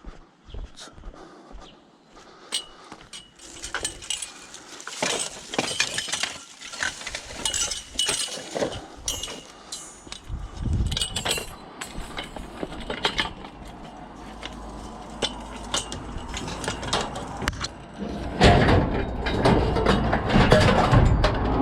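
Scrap metal pieces clanking and clinking as they are handled and shoved into a van, with irregular sharp knocks throughout. In the last few seconds the knocking and scraping get louder and heavier.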